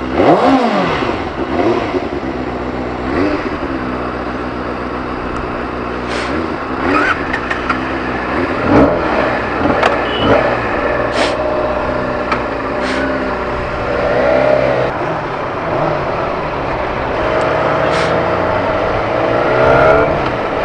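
Benelli motorcycle engine, just started, idling with repeated throttle blips: the revs rise and fall a dozen or so times.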